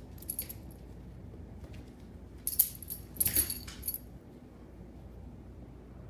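A Boston terrier and a kitten play-fighting on a tile floor: scuffling and scrabbling, with short, bright, rattly bursts about half a second in and again between two and a half and four seconds in.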